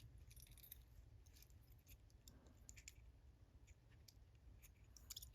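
Faint, irregular small metallic clicks of tools and parts being handled on a laminated Master Lock padlock as the stuck plug is worked at.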